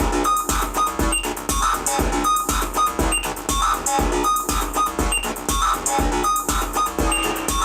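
Repetitive electronic loop: a drum machine's steady kick drum about two beats a second with ticking hi-hats, under short, repeated notes from a Korg Volca Keys analog synthesizer on a factory preset.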